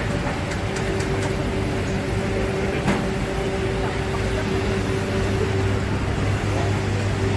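Street-food market ambience: a steady mechanical hum with a constant tone running under background noise of people and stalls, with one sharp click about three seconds in.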